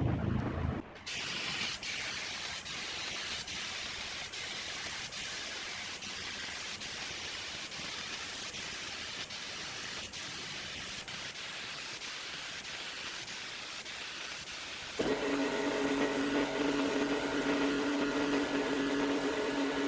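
Steady hiss with faint regular ticks; about fifteen seconds in, a machine starts up and hums steadily, louder than the hiss, with several fixed tones.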